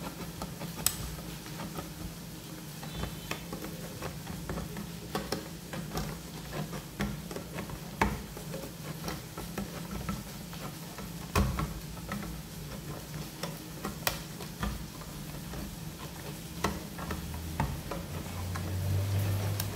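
Hand-held lever can opener punching and prying its way around the rim of a steel can: irregular sharp metallic clicks and crunches, one or two a second. The lid is hard to cut, so the opener goes around slowly and with effort.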